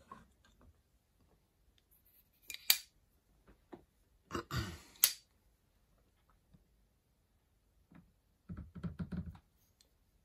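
Scattered small metal clicks and knocks of a steel center punch being handled and slid into the jig borer's spindle holder, with a quick run of rattling clicks near the end.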